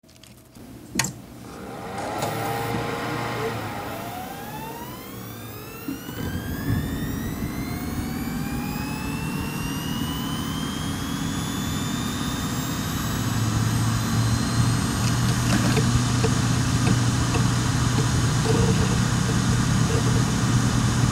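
Mac Pro cooling fans heard from inside the case, spinning up: after a click about a second in, a whine rises steadily in pitch over about a dozen seconds and settles into a steady, loud whir with a low hum.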